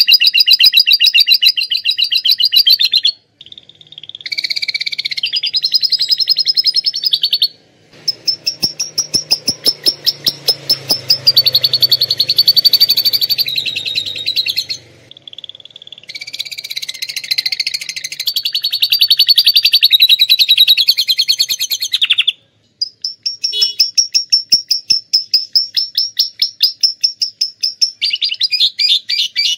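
Domestic canary singing long, loud phrases of fast, rattling trilled notes, falling briefly silent four times between phrases. Its song is filled with phrases copied from lovebirds.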